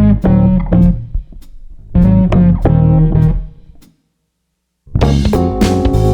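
Background music: plucked guitar over a bass line. It cuts out completely for about a second near the end, then comes back fuller with drums.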